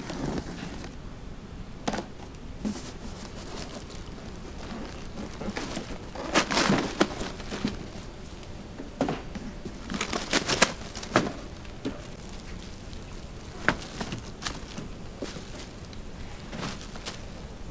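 Scattered clicks, taps and crinkling handling noises, with busier clusters about six and ten seconds in.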